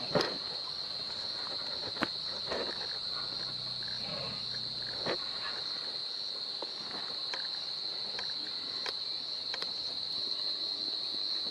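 Steady high-pitched drone of insects calling in the grassland, with scattered snaps and rustles. About three seconds in, a short low rumble from the Asian elephant herd lasts a couple of seconds.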